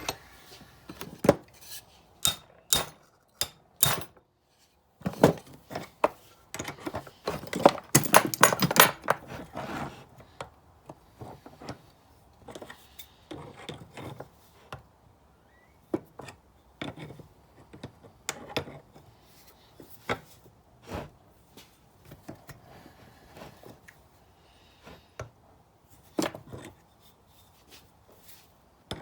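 Metal hand tools and small parts clinking and knocking in irregular sharp strikes, with a busy stretch of rattling about five to ten seconds in.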